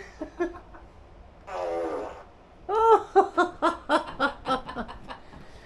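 Sulphur-crested cockatoo making a short raspy fart-like noise, then a quick run of about ten laugh-like 'ha' calls, roughly four a second.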